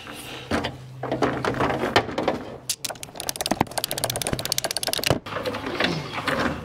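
Metal clicks and rattles of hand tools and wire being worked in an open breaker panel, with a fast, even run of clicks from about three to five seconds in.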